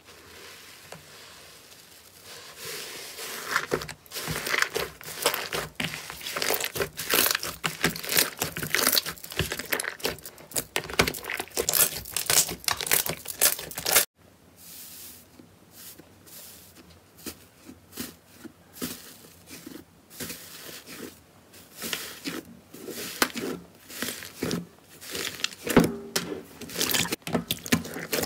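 Slime pressed and squished by hand, giving dense crackling and crinkling sounds. Around halfway the crackling stops abruptly, then returns as sparser crackles and pops.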